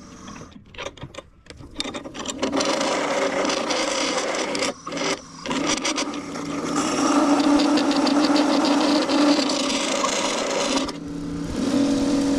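Hollowing tool cutting inside a glued-up hardwood furniture leg spinning on a wood lathe, which the turner takes for maple: a rough scraping hiss. It breaks off several times in the first two seconds and briefly around five seconds in, then runs steadily, dropping away again near the end.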